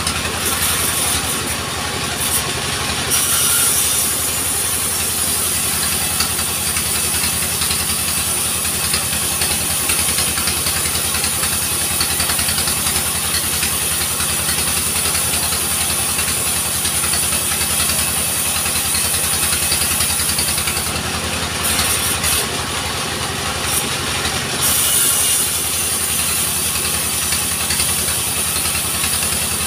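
Engine of a small portable sawmill running steadily, with a regular low pulsing beat.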